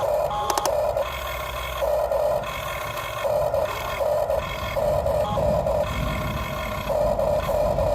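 The electric gear motors of a Huina 1550 remote-control excavator whine as its arm and bucket are worked. The whine starts and stops in short bursts of under a second, about eight times, with a few clicks about half a second in.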